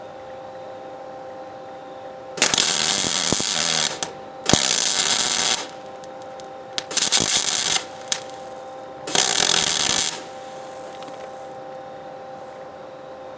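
Welder arc crackling in four short bursts of about a second each, with a steady hum between them: weld being laid onto a broken exhaust manifold bolt in a cast aluminium LS cylinder head to build it up for extraction, though it is not fusing into the bolt.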